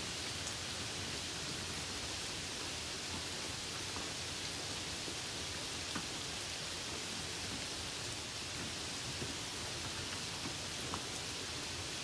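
Steady hiss of falling, splashing water, with a few faint single-drop ticks.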